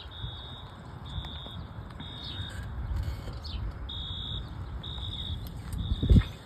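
Wheelock fire alarm horn sounding a steady high beep in the temporal-three evacuation pattern: three beeps, a pause, then three more. A dull thump near the end.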